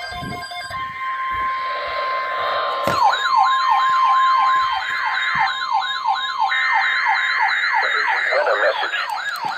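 Emergency alert sounds: a steady single-pitch alarm tone, joined about three seconds in by an electronic siren yelping rapidly up and down at about three sweeps a second, with a second, higher steady tone held for a few seconds in the middle.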